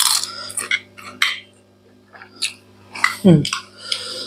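Metal spoon clinking and scraping against a glass serving bowl and plates as food is dished out, in several separate clinks. A little after three seconds comes a short, loud falling vocal sound.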